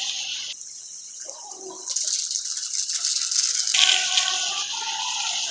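Chicken pieces sizzling in hot oil in a kadai on a full gas flame: a steady hiss that turns louder and crackling for a couple of seconds in the middle.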